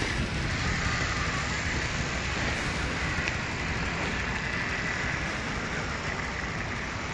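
Steady rushing noise with a low rumble, wind on the microphone, with a faint whine from an Axial XR10 electric RC rock crawler's motor and gears as it climbs a rock face.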